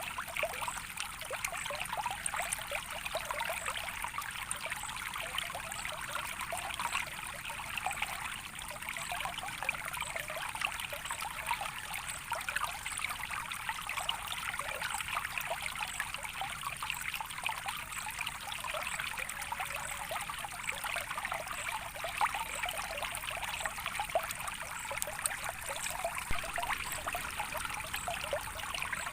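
A small natural stream of water trickling and babbling steadily, with fine, continuous splashing.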